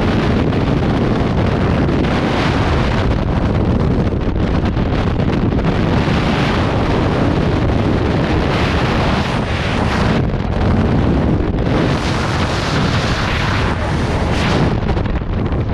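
Loud, steady wind buffeting the microphone, swelling and easing a little: air rushing past during a parachute jump.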